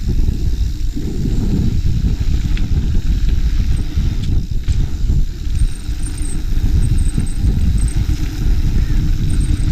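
Mountain bike riding a dirt trail filmed on a GoPro: a steady, loud low rumble of wind buffeting the camera's microphone and tyres rolling over the ground.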